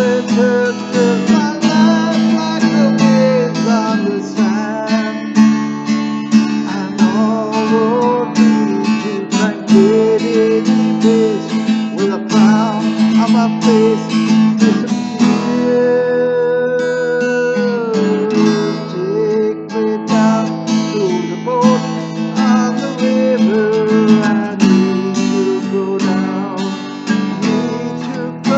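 Instrumental music: strummed acoustic guitar chords under a wavering lead melody line, with one long held note a little past halfway.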